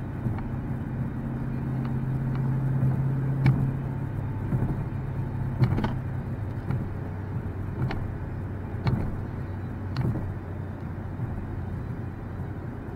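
Dodge Challenger SRT392's 6.4-litre Hemi V8 running steadily at cruise, heard from inside the cabin with tyre and road noise. The low engine hum fades after about six seconds, and a few sharp clicks come through now and then.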